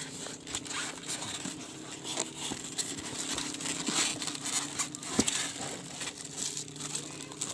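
Packaging being handled during unboxing: irregular rustling, crinkling and tearing of plastic wrap, tape and cardboard, with a sharper rip about five seconds in.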